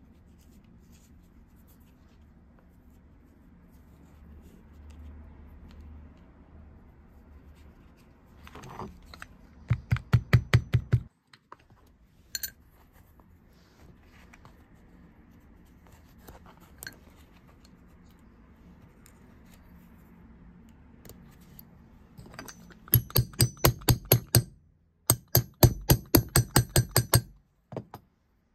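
Three runs of quick, light metal-on-metal hammer taps, about seven a second, as a brass eyelet is set in leather on a steel bench block. One run comes about ten seconds in and two more near the end, with a few single clicks between.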